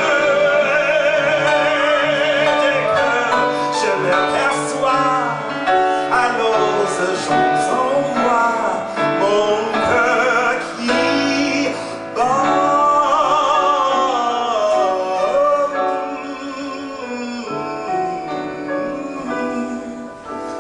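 Male singer holding long notes with heavy vibrato in a live performance, backed by a small band with piano. The music grows quieter over the last few seconds.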